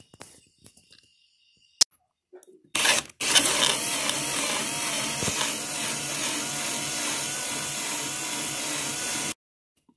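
Kobalt 24-volt brushless cordless drill spinning a 1 1/8-inch spade bit through the ATV's plastic body panel. After a short blip about three seconds in, it runs steadily for about six seconds, its pitch wavering slightly under load, then cuts off suddenly near the end.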